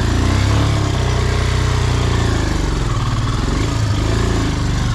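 Heavily loaded motorcycle engine revving up and falling back twice as the bike's rear wheel slips in mud.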